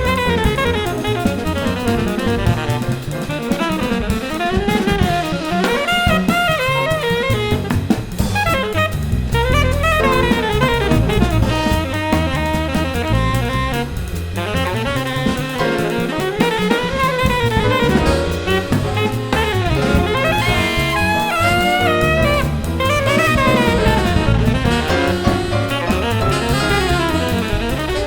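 Jazz music: a saxophone playing fast, bending melodic runs over a drum kit.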